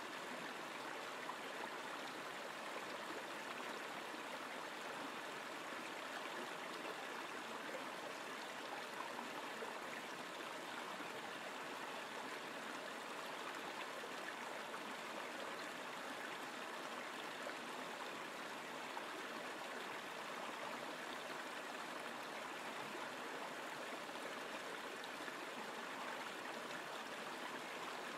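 Shallow river rushing steadily over a riffle of rocks, a constant even wash of moving water.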